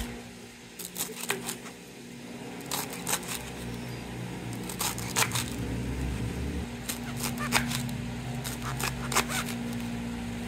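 Handling noises: irregular crackling and crinkling, as of a plastic bag and leafy vegetables being handled, over a steady low hum.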